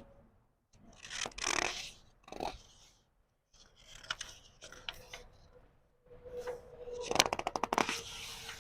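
Paper book pages being turned slowly, rustling in several separate bursts, with a quick run of sharp page flicks near the end.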